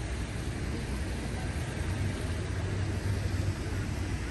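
Steady city street background noise: a low, even rumble with a faint hiss above it and no distinct events.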